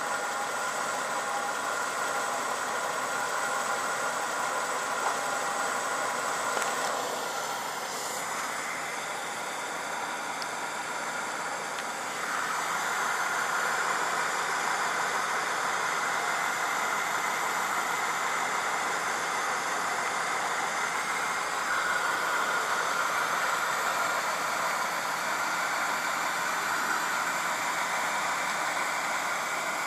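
1994 Ford Fairmont ED car engine idling steadily after a hard cold start, dipping a little about seven seconds in and picking up again about twelve seconds in.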